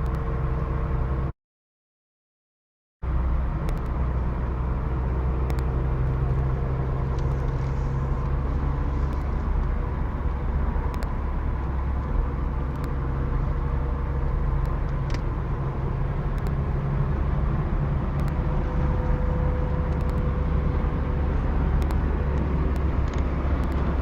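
Steady engine and road noise of a moving Nissan Silvia S14, a low, even hum with no revving. The sound cuts out completely for under two seconds about a second in.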